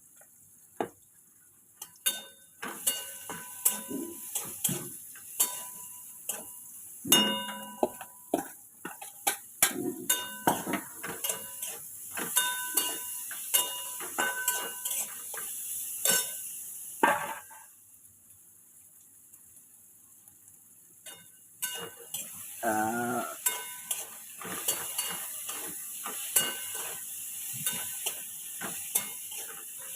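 A metal utensil stirring food in a metal pan: rapid clinks and scrapes that ring, over a frying sizzle. It stops for about three seconds a little past the middle, then starts again.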